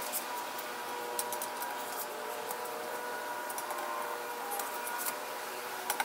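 Faint metallic clicks and scrapes of a lug wrench being worked on a car wheel's lug nuts to loosen them, a few small clicks spread over the seconds.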